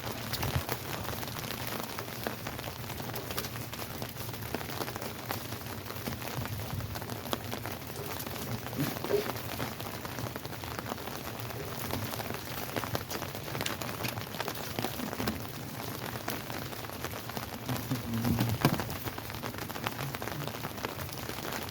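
Heavy rain falling steadily, with the sharp ticks of individual drops striking surfaces close to the microphone.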